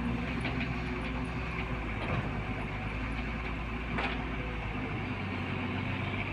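Diesel engine of a Tata Hitachi EX200LC excavator running steadily, with a couple of sharp clicks about two and four seconds in.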